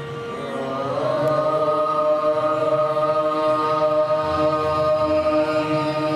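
One long chanted note: a voice slides up in pitch about a second in and then holds it steadily, over a steady low drone.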